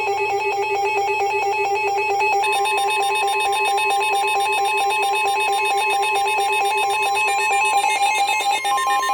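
Emergency alert alarm sounding: a loud electronic tone trilling rapidly and steadily like a ringing telephone, with a higher steady tone joining near the end.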